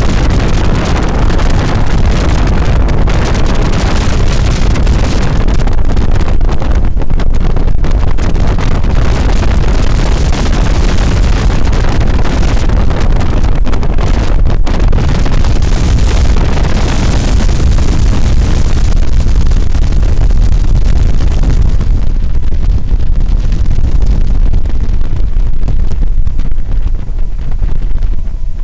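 UH-60 Black Hawk helicopter in flight, heard from inside the cabin: a loud, steady noise from the rotors and twin turboshaft engines, with wind buffeting the microphone at the open gunner's window. The higher hiss thins out over the last several seconds.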